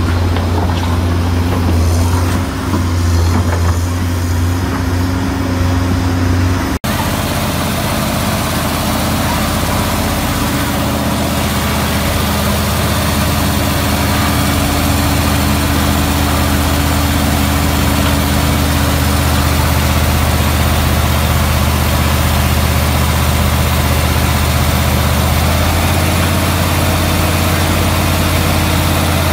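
A heavy diesel engine running steadily: for the first several seconds a Komatsu PC220 hydraulic excavator, then, after an abrupt cut, a KAMAZ dump truck's engine running under steady load as its tipper bed is held raised to dump soil.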